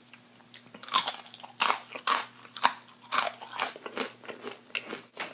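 A person biting and chewing crispy fried food close to the microphone: a quick, irregular run of sharp crunches.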